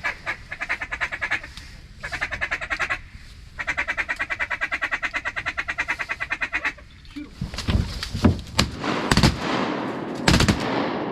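Fast rhythmic duck chatter, about ten quacks a second in three runs, from a duck call working incoming ducks. Then a volley of about five shotgun shots over some three seconds.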